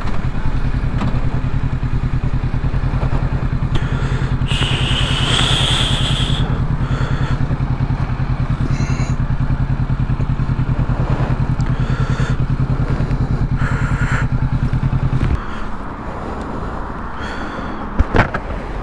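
2020 Kawasaki Ninja 650's parallel-twin engine idling steadily, then shut off about fifteen seconds in. A brief high squeal comes about five seconds in, and a couple of sharp clicks come near the end.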